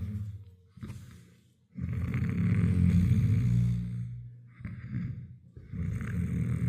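A man snoring loudly in his sleep: long, drawn-out snores, one from about two seconds in, a short one near five seconds, and another starting near the end, with quiet gaps between.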